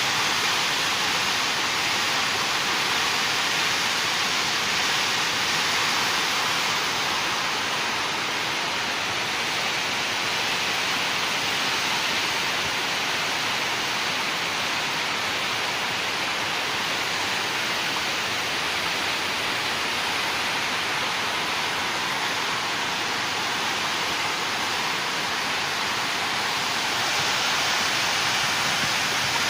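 The flooded Ravi River rushing, a loud, steady roar of fast water with no breaks.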